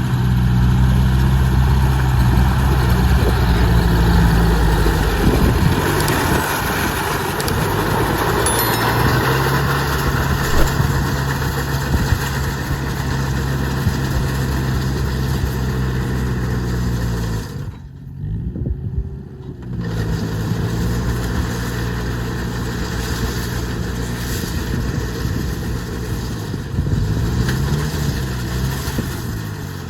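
An engine running steadily, its pitch dipping and rising a few times; a little past the middle the sound drops away for about two seconds before the engine picks up again.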